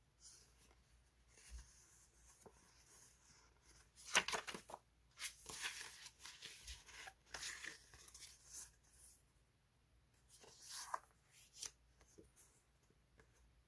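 Paper label sticker sheets rustling and sliding against each other as they are handled and fanned through by hand, in a run of crisp flurries starting about four seconds in and a shorter one about eleven seconds in.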